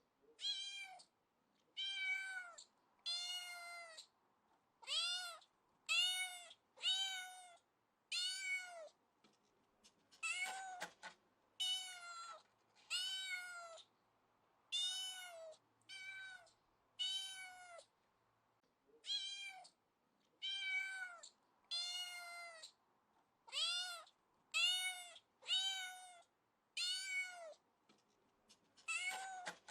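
A kitten meowing over and over, one short high-pitched meow about every second, each rising and then falling in pitch, with brief silent gaps between them.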